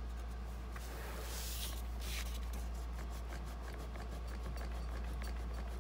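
A baby wipe rubbing over glossy cardstock: soft scrubbing with small clicks and scuffs, and a louder swipe about a second in. A steady low hum runs underneath.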